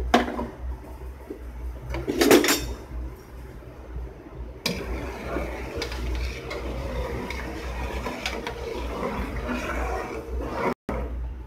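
A bowl knocking against a large cooking pot twice, at the start and about two seconds in, then a steady hiss and bubbling from a pot of water at the boil.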